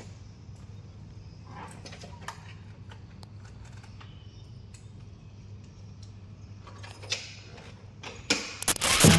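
Honda Supra underbone motorcycle's single-cylinder engine idling at a low, steady hum, with scattered light clicks and rattles. Louder clattering knocks come in near the end.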